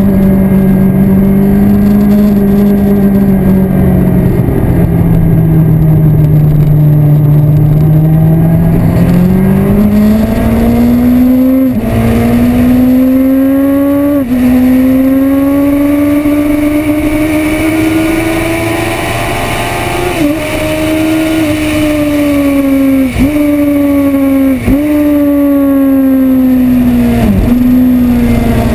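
Yamaha R1 inline-four sportbike engine at speed on a racetrack, recorded from an onboard camera with wind rushing over it. The engine note sags through a corner, then climbs again under throttle, broken by several quick gear changes that each cut the note for an instant.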